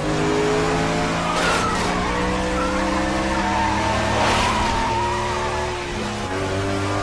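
Stock-car V8 engines at full throttle running side by side, several engine notes rising together. The tires squeal in the middle as the cars rub against each other, with two short bursts of scrub about a second and a half and four seconds in.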